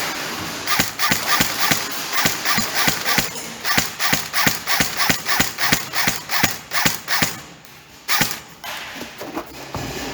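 Quick footsteps at about three a second, stopping about seven and a half seconds in, then a single loud knock.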